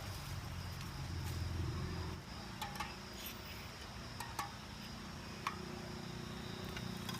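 A few light metallic clinks of cookware while eggs are being cooked on a camp stove, over a steady low hum and the constant high drone of insects.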